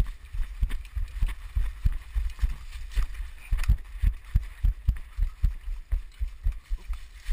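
Running footsteps, a steady rhythm of low thuds about three a second with light clatter of gear, as heard from a camera worn by the runner.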